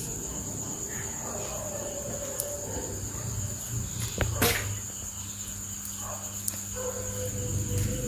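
Insects chirring steadily at one high pitch, over a low hum, with a single sharp knock about halfway through.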